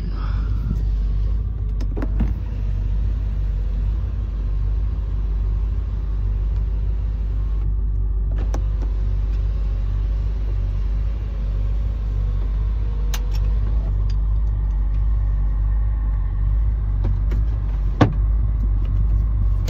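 BMW E39 M5's 4.9-litre V8 idling steadily shortly after a cold start, heard from inside the cabin. A few sharp clicks stand out over the idle, the loudest near the end.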